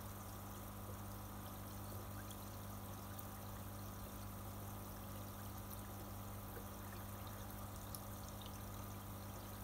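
Pond tank filter returning water into the tank: a steady trickle of falling water over a constant low hum.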